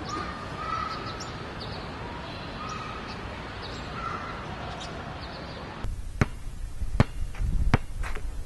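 A basketball dribbled on asphalt, with about five quick bounces starting about six seconds in. Before that there is only a steady background hiss.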